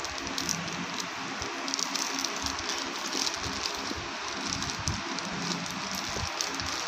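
Clear plastic packaging bag crinkling and rustling as it is handled, with irregular crackles.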